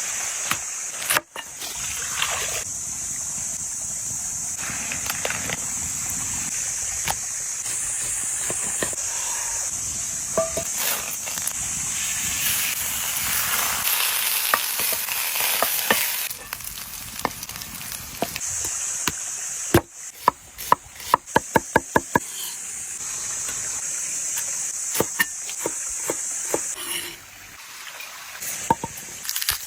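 Food sizzling as it fries over an open fire, a steady high hiss, with scattered clicks and scrapes. About two-thirds of the way through comes a quick run of about ten sharp knocks, roughly five a second.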